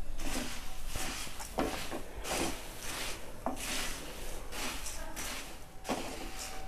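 Puffed rice being stirred with a spatula in a dry kadhai, the grains rustling and the spatula scraping the pan in repeated sweeps: the puffed rice is being dry-roasted on low heat.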